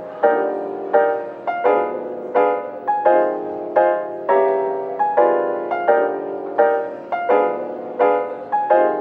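Background music: soft lo-fi piano playing gentle chords, a few struck notes a second, each ringing and fading.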